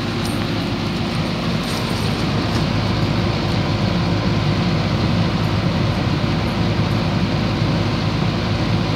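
1969 Lennox straight-cool central air conditioner's outdoor condenser unit running steadily: a low hum under the rush of its condenser fan blowing air out through the fan grill. The air leaving the grill is about 120 degrees, which is normal for the unit working on a hot day.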